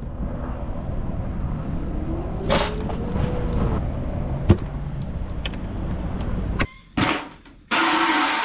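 Low outdoor rumble of wind and traffic, with a faint hum that rises and falls and a couple of sharp clicks. About eight seconds in it gives way to a garden hose spraying water into a plastic bucket with a loud steady hiss.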